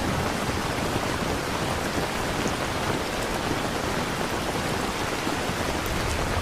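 Steady rain mixed with the rush of a waterfall: a dense, even hiss.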